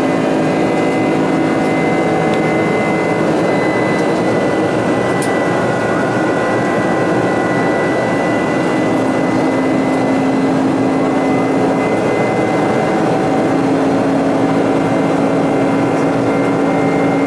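Steady cabin noise of a Boeing 747-400 in flight: the hum of its four turbofan engines and the rush of air past the fuselage, with a few steady tones over it.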